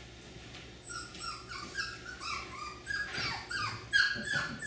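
F1b cockapoo puppies yipping while they play: a quick run of short, high-pitched yips, each falling in pitch, starting about a second in and getting louder toward the end.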